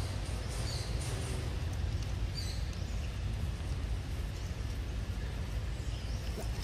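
Outdoor forest ambience: a steady low rumble, like wind on the microphone, with a few short high bird chirps, one just under a second in and another about two and a half seconds in.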